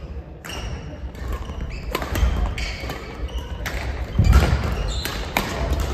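Badminton rallies: rackets striking shuttlecocks in sharp irregular cracks, with shoes squeaking and feet thudding on a wooden gym floor. The loudest thud comes about four seconds in.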